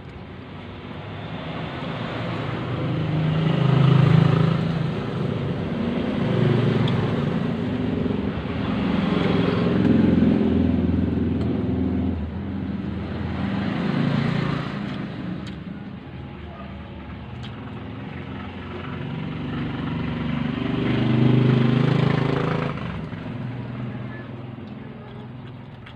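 Motor vehicle engines passing by, swelling louder and fading away several times in a row, loudest about four seconds in and again near twenty-two seconds.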